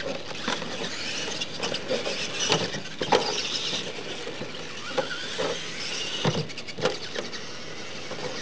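Radio-controlled monster trucks racing on dirt: the whine of their electric motors and gearboxes, with several sharp knocks as the trucks bounce and land off the ramps.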